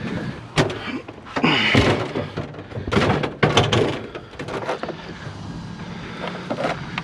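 Several heavy knocks and clunks of a scrapped refrigerator being handled and secured for hauling, with a vehicle engine idling steadily underneath.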